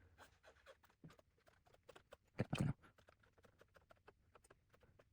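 Faint, irregular light clicks and taps of small cassette-deck parts being handled while a cotton swab cleans a rubber idler wheel, with one louder sound about two and a half seconds in.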